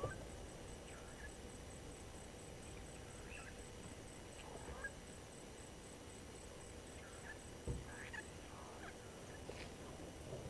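Faint, scattered short bird calls over a steady background hiss, with a low thump about eight seconds in.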